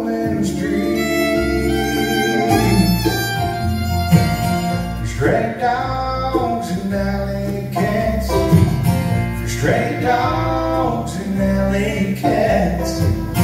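Bluegrass band playing live: fiddle, acoustic guitar, mandolin and upright bass.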